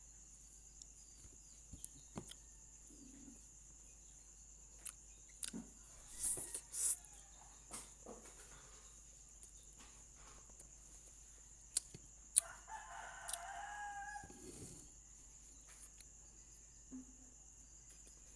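A rooster crows once in the background, a call of about two seconds starting a little past the middle. Faint scattered clicks and taps come and go, and a steady high-pitched tone runs throughout.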